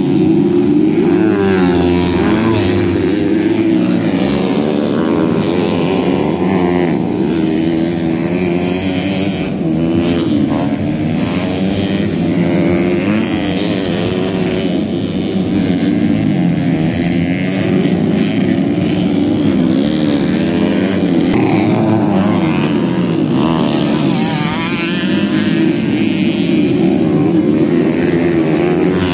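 Dirt-bike engines revving around a motocross track, several at once, their pitch repeatedly rising and falling as riders open and close the throttle.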